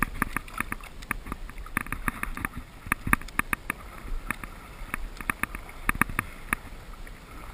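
Shallow water splashing and sloshing around hands and a bonefish as the fish is grabbed and lifted out, many sharp irregular splashes.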